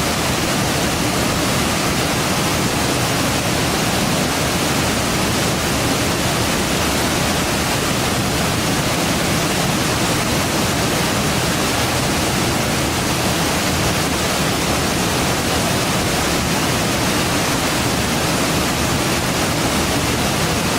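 A waterfall rushing steadily, a loud, even noise of falling water that does not change.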